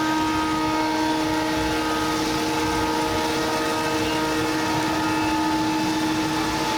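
Router spindle running steadily while machining a clear acrylic sheet: a constant whine of several steady tones over a noisy rush, with no change in pitch or level.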